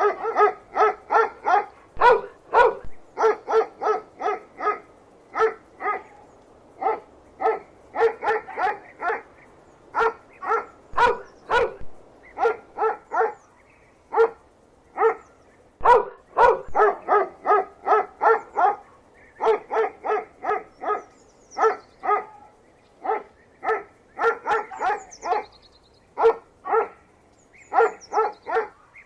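A dog barking over and over in quick runs of short barks, about two to three a second, with brief pauses between the runs.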